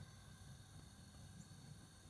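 Near silence: only a faint, steady low rumble.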